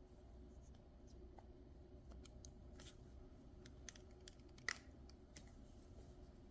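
Near silence with scattered faint light clicks and one sharper click a little past the middle, like small hard parts being handled.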